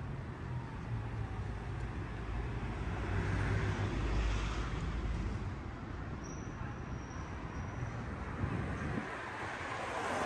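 Street traffic noise: vehicles passing with a low engine rumble. The noise swells as one passes about four seconds in and again near the end.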